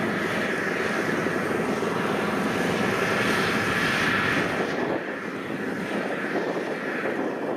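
WD102PRO rice combine harvester running steadily while cutting and threshing standing rice: a continuous mechanical drone of engine and threshing gear, a little softer from about five seconds in.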